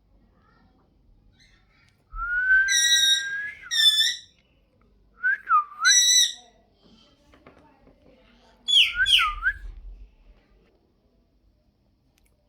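Pet parrot whistling: a long rising whistle, then several short swooping whistles that dip and rise again, in four groups with pauses between.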